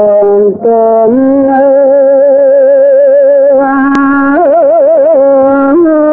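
An old man chanting Khmer smot, the Buddhist sung recitation, in a single unaccompanied voice. He holds long notes that slide between pitches, breaks off briefly about half a second in, and shakes the note in a wavering ornament a little past four seconds. A brief click sounds about four seconds in.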